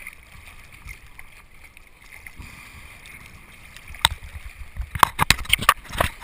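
Water sloshing at the surface around a GoPro's waterproof housing, then from about four seconds in a rapid run of sharp knocks and clicks as fingers handle the housing.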